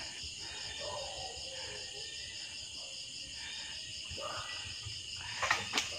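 Night chorus of crickets and other insects: a steady high chirring with an evenly pulsing trill. A couple of sharp clicks come near the end.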